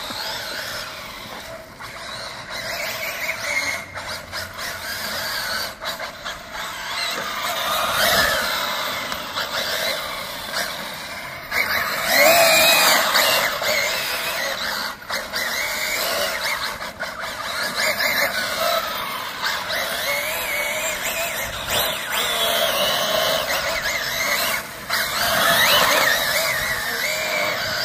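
RC car's XC E5690 sensored brushless motor whining at high speed, the pitch rising and falling over and over as the car accelerates and brakes, loudest about twelve seconds in.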